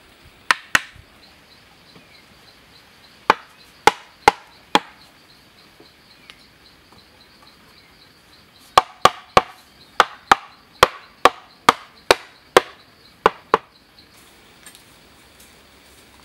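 Sharp, single knocks of a hand tool striking bamboo: two near the start, four more a few seconds later, then a quicker run of about a dozen, roughly two a second, that stops about two seconds before the end.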